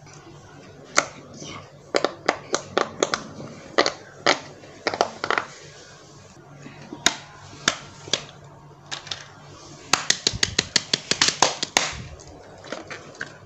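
Silicone pop-it fidget toy's bubbles pressed with the fingers: a string of sharp pops in bursts, fastest about ten to twelve seconds in.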